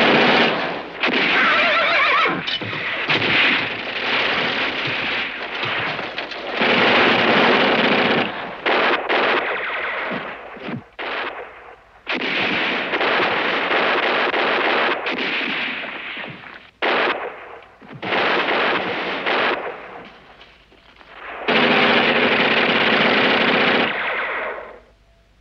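Machine-gun fire from a TV war-drama battle soundtrack, in repeated long bursts of one to three seconds with short gaps between them, cutting off sharply near the end.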